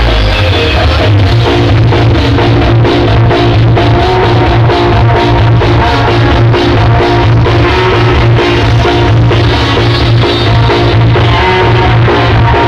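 Very loud music with heavy bass, played through a large carnival sound-system rig (Blizzard Audio, an Indonesian 'sound horeg' setup).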